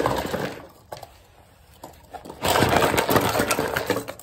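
Dry baked clay and fuller's earth being crunched: loud crackling and splintering, briefly at the start and again in a longer burst of a second and a half near the end.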